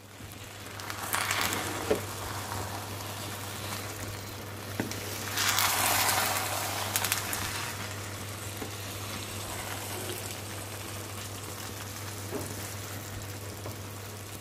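Sapasui (Samoan chop suey of glass noodles and meat in sauce) sizzling and bubbling in a stainless steel pot as it is stirred with a wooden spoon, growing louder for a moment about a second in and again from about five to seven seconds in. A steady low hum runs underneath.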